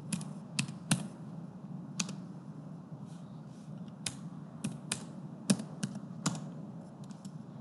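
Typing on a computer keyboard: about ten separate key clicks at an uneven pace, with a pause of a couple of seconds partway through, over a steady low hum.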